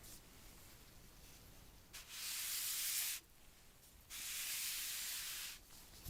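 Two bursts of hissing noise, the first about a second long and the second about a second and a half, with a pause between them.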